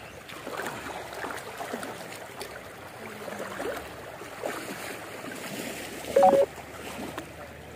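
River current running and splashing around bathers. About six seconds in, a short loud tone steps up in pitch.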